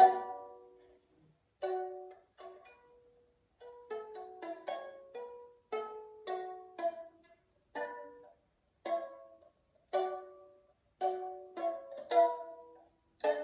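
Kinor lyre being plucked: single notes and pairs of notes, one every second or so, each ringing briefly and dying away, after a strummed chord that fades out at the start.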